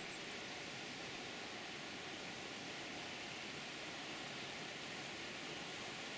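A steady, faint hiss of outdoor background noise, even and unchanging, with no distinct events.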